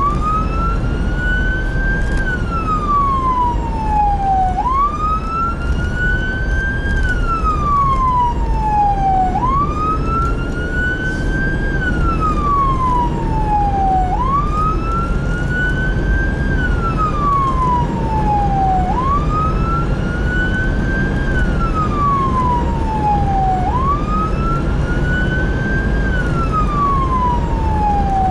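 Fire engine siren on wail, rising and falling in a slow, even cycle about every five seconds, over a steady low rumble.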